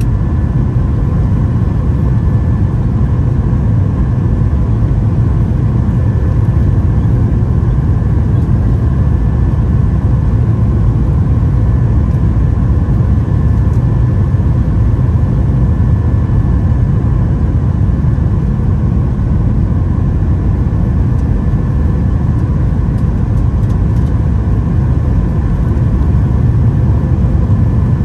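Steady cabin noise of a Boeing 737-800 in flight: a deep, even rumble of its CFM56 engines and airflow, with a few faint steady tones over it and no change throughout.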